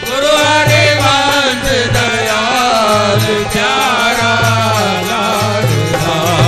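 Devotional naam-dhuni name chant sung as music: a gliding, ornamented melody line over a low repeating beat.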